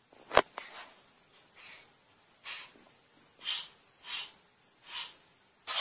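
An animal sneezing: one sharp sneeze about half a second in, then a string of about seven softer, breathy sneezes and snorts, roughly one a second.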